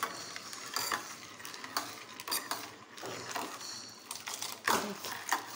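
Steel ladle stirring sugar syrup and crushed candy in a stainless steel pot, scraping and clinking against the pot's sides at irregular moments.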